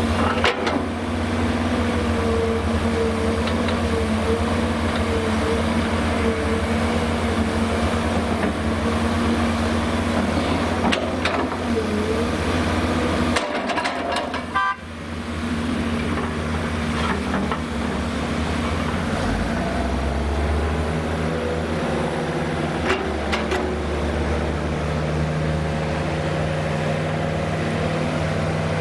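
Diesel engines of a Hyundai Robex 300LC-9S crawler excavator and a Cat 730 articulated dump truck running steadily during loading, with occasional clanks. A brief high tone comes about fifteen seconds in, and a deeper engine note rises about twenty seconds in.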